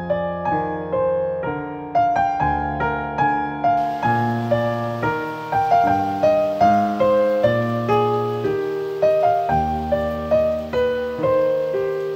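Background piano music: a gentle melody of single notes over held chords, at an even pace of about two notes a second.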